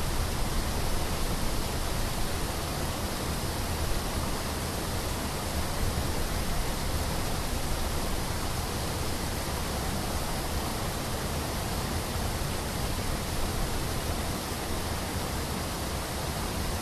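Steady, unchanging rushing noise spread evenly from deep rumble to high hiss, with no separate events in it.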